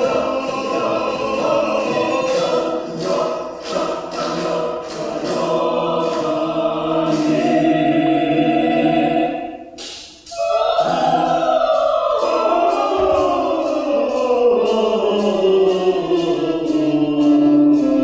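Recorded opera scene: a chorus of voices singing with accompaniment over a regular beat. The music breaks off briefly about ten seconds in, then resumes with the voices sliding down in pitch.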